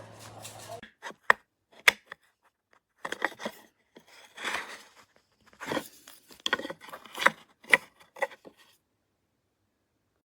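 Pieces of a wooden phone docking station and desk organizer being handled: a few sharp clicks and knocks among short scraping and rubbing sounds.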